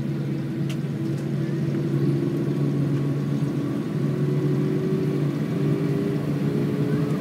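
Airbus A319 cabin noise on the ground after landing: steady jet engine drone and rumble with a few sustained hum tones, some rising slightly in pitch.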